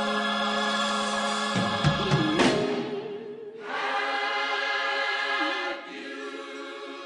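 Choir singing held chords with instrumental backing. A loud accent about two and a half seconds in is followed by a brief drop-out, then a held chord that grows quieter near the end.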